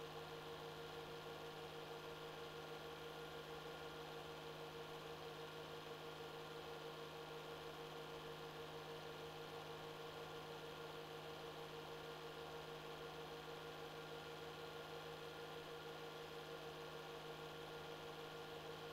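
Steady electrical hum with a faint hiss and no other sound: a silent 8mm print with no soundtrack.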